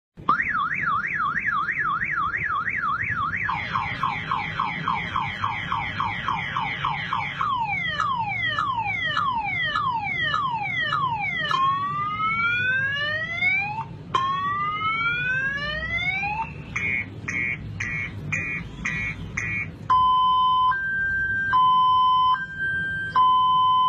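Multi-tone car alarm siren cycling through its patterns: a fast warble, then rapid chirps, falling sweeps, rising whoops, quick beeps, and near the end a slow two-tone high-low.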